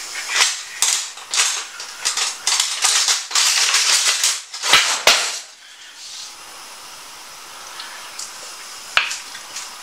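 Metal cutlery rattling and clinking as a hand rummages through a kitchen cutlery drawer, dense clattering for about five seconds ending in two heavier knocks, then quieter with a single click near the end.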